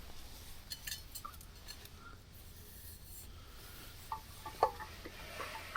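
Faint rustling with scattered small clicks and taps, a slightly louder tap about four and a half seconds in, over a faint steady low hum.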